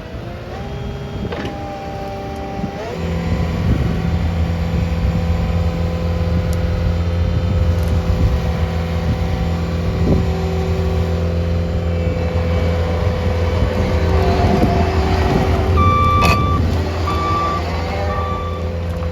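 A CAT 299D2 XHP compact track loader's diesel engine is run up over the first few seconds, then holds a steady high-rpm drone. Near the end the machine's reversing alarm beeps about once a second as it backs up.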